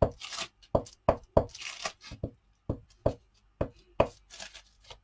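Glue stick rubbed back and forth over a paper butterfly cut-out on a plastic craft mat: a run of soft knocks, about two or three a second, with brushing rubs between them.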